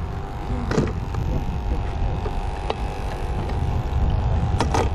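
Wind buffeting the microphone: a steady, gusty low rumble, with a few sharp handling clicks, one about a second in and a small cluster near the end.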